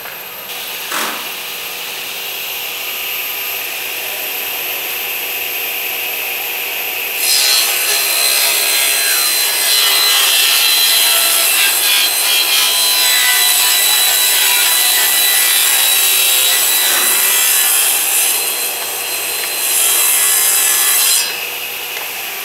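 Table saw running, then ripping a wide panel along the fence. About 7 s in the blade enters the cut and the sound becomes louder and harsher, easing briefly around 17–19 s and dropping back to the saw running freely near the end. A single knock about a second in.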